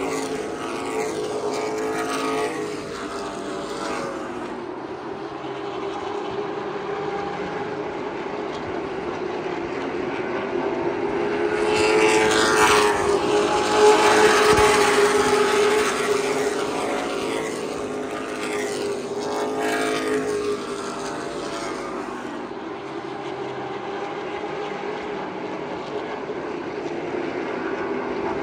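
Virginia Racer division stock cars racing around an asphalt short-track oval: a continuous engine drone that swells and falls as cars go past. There is a pass a couple of seconds in, the loudest one about halfway through, another about two-thirds of the way in, and a rise again at the very end.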